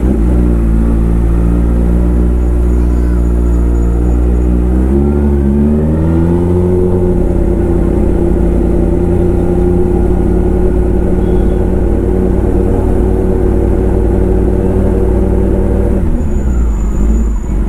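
Kawasaki ZX-10R inline-four with an Arrow aftermarket exhaust, ridden at low city speed. Its note rises as the bike accelerates a few seconds in, holds steady on a light throttle, then drops near the end as the rider slows.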